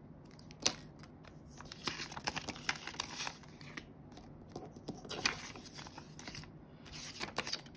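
Banknotes and a cash envelope being handled: crinkling and rustling with sharp little clicks, in several short bursts.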